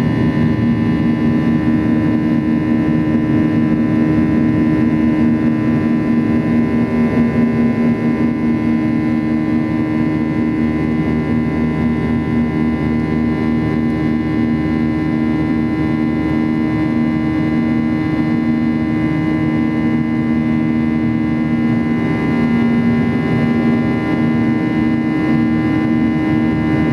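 Steady cabin drone of a Boeing 737-800's turbofan engines in flight, heard inside the cabin: a low hum with several steady tones over a rushing noise.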